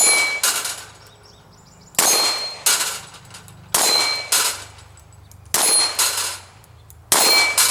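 Five quick pairs of pistol shots, the pairs about one and a half seconds apart. The shots carry a bright metallic ring like steel being struck.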